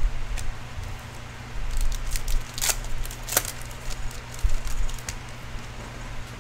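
Trading cards being handled and shuffled on a tabletop: soft sliding with scattered clicks and a few sharper crackles about two to three and a half seconds in, over a steady low hum.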